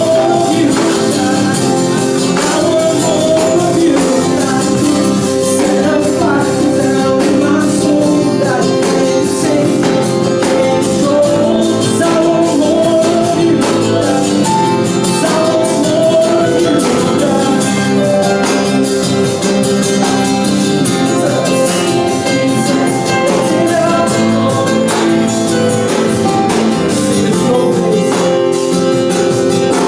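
Live worship music with singing and percussion, played loud and continuously.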